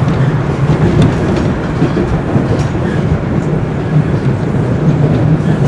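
Bombardier Toronto Rocket (TR) subway train running at speed, heard from inside the car: a loud, steady rumble of wheels on the rails with faint scattered clicks.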